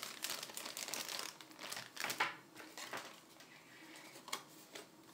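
Clear plastic packaging crinkling and rustling as it is handled, with a few sharp clicks near the end.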